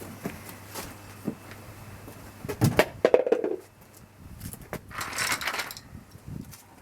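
Knocks and clatter of parts and tools being handled, loudest about three seconds in, then a short hiss about five seconds in.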